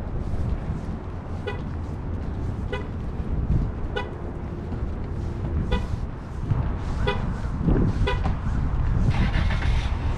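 Wind rumbling on the microphone, with six short, high-pitched toots spaced about a second apart, and a hiss near the end.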